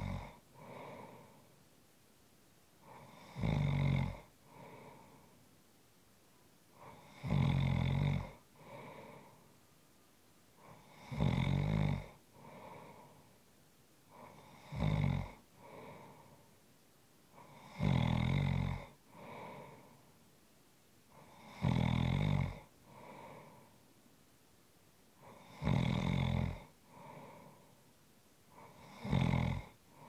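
A person snoring in a steady rhythm: a loud, low rasping snore on each in-breath about every four seconds, each followed by a softer breathy out-breath.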